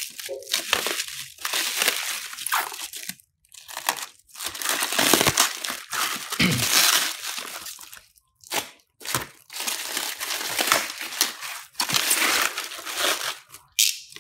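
Bubble wrap and plastic stretch film crinkling and rustling as they are pulled off by hand, in a run of bursts with a few short breaks.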